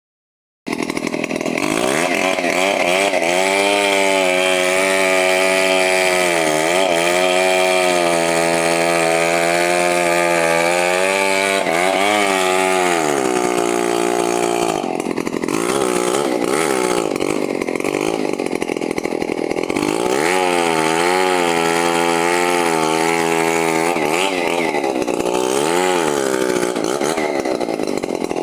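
Two-stroke chainsaw running at high revs while cutting into a tree trunk. Its pitch repeatedly sags and recovers as the chain bites under load, drops back about halfway through, then rises and cuts again.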